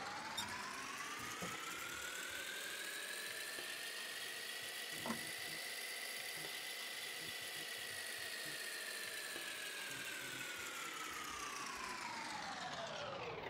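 Electronic whirring sound effect: a layered tone that climbs slowly in pitch for about six seconds, then falls slowly back down, with one sharp click about five seconds in.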